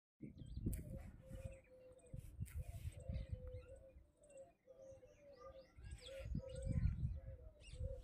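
Background birdsong: many short, high chirps from small birds over a low cooing note repeated again and again, with a low rumble on the microphone.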